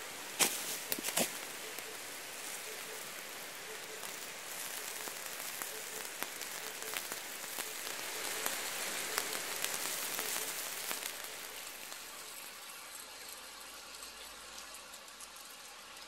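Breaded beef cutlet slices sizzling and crackling on a hot stone plate, with a few sharp clicks about half a second to a second in; the sizzle swells for a few seconds past the middle, then dies down.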